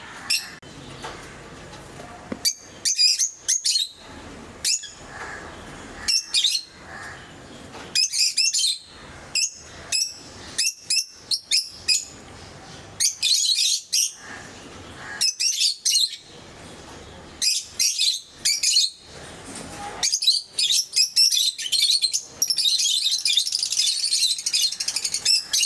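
Pet lovebirds chirping in clusters of short, high-pitched calls with brief pauses between them, breaking into continuous chattering near the end.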